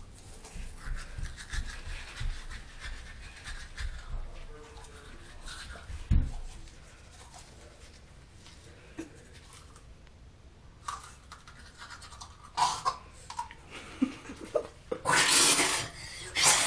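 Manual toothbrush scrubbing teeth, a soft scratchy brushing with scattered knocks and a thump about six seconds in. Near the end, at the sink, a loud rushing noise lasting about a second and a half.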